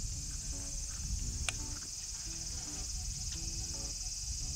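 Steady high-pitched drone of summer cicadas, with a low rumble underneath and one sharp click about a second and a half in.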